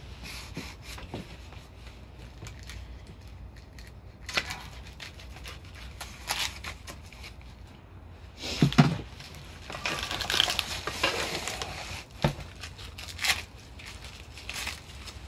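Plastic wrap crinkling and cardboard packaging rustling as a hydraulic press is unpacked, with scattered knocks from its steel parts being handled; the loudest is a thump almost nine seconds in, followed by a couple of seconds of steady crinkling.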